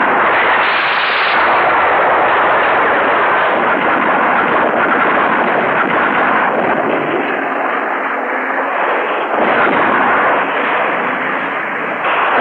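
Monster-movie sound effects of a row of army tanks firing their cannons in a sustained barrage, the shots and blasts running together into a dense, unbroken din.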